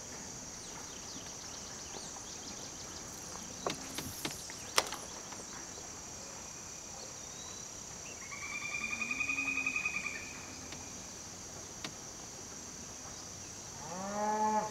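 Steady, high-pitched drone of a summer insect chorus. A few sharp clicks come around four to five seconds in. A louder pulsing, whining tone follows for about two seconds past the middle, and a brief rising sound comes near the end.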